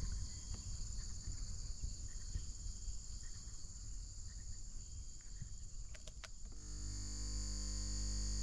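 Steady high-pitched insect buzzing over a low rumble. Two or three sharp clicks come about six seconds in, and shortly after a steady low hum joins and runs on to the end.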